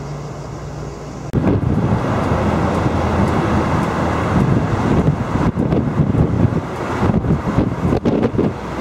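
Vehicle engine hum from a moving bus that, about a second in, gives way suddenly to loud, gusting wind buffeting the microphone, with traffic noise beneath.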